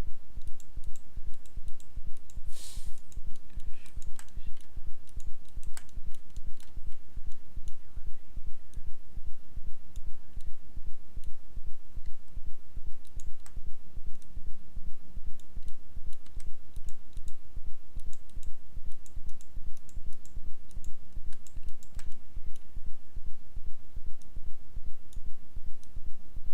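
Scattered computer mouse and keyboard clicks over a steady low electrical hum that pulses evenly.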